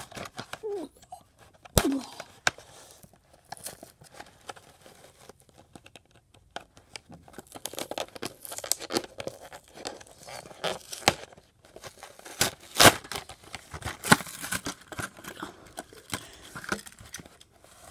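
Clear plastic blister packaging of a toy train being pried open by hand: irregular crinkling and crackling of the plastic, with a few sharper snaps in the second half.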